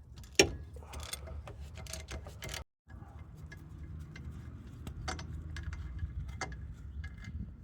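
Ratchet and 17mm socket clicking in quick runs of sharp ticks, with metal tool clinks, while a bearing carrier bolt is undone on a Nissan 350Z rear hub.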